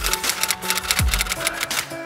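Outro music with a steady drum beat, and a rapid run of keyboard-typing clicks laid over it for about the first second and a half as a typing sound effect.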